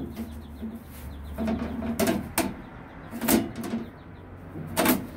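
Thin sheet-metal tailgate cover panel being bent and handled, knocking and clanking against the tailgate four times, starting about two seconds in.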